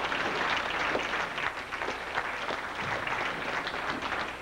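Audience applauding with steady clapping that begins to die down near the end.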